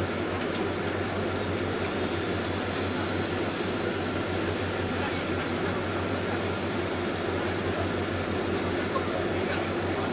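Cabin noise inside a Boeing 767-300 taxiing: a steady low hum from its Rolls-Royce RB211 engines at taxi thrust over the rumble of the wheels rolling along the taxiway. A high hiss comes in about two seconds in, drops out around five seconds, and returns a second later.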